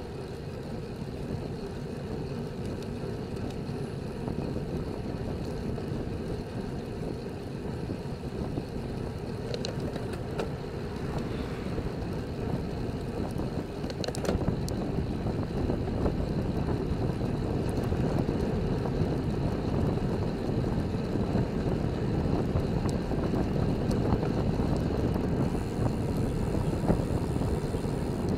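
Wind buffeting a bicycle-mounted camera's microphone, with road-bike tyres rolling on asphalt: a steady low rushing that grows louder about halfway through as the bike speeds up from about 26 to 32 km/h on a slight descent.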